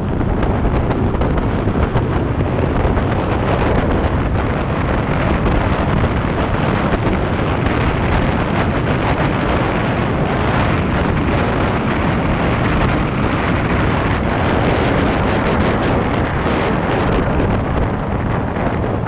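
Steady wind rush on the microphone of a mountain biker riding fast downhill, mixed with the rumble of the bike's tyres rolling over a dirt road.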